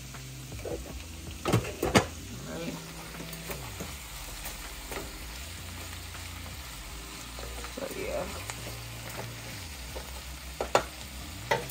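Cabbage with bacon and kielbasa sizzling steadily in a frying pan while a wooden spoon stirs it. Two sharp clinks come about one and a half to two seconds in as a glass lid is set on a saucepan, and a couple of knocks of the spoon against the pan come near the end.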